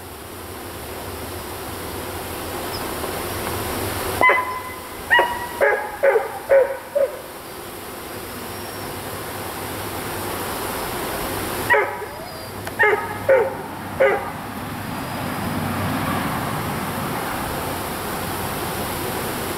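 Honeybee swarm buzzing steadily around the hive, a hum that grows a little louder near the end. Over it a dog barks in two runs of short barks, about six quick barks some four seconds in and four more around twelve seconds.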